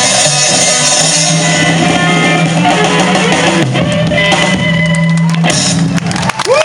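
Live rock band playing: electric guitar over drums and bass guitar. The cymbals drop out about five and a half seconds in, and the music stops near the end.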